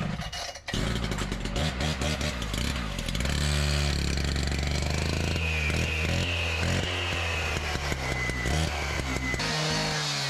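A small engine starts up and runs loudly, its speed rising and falling.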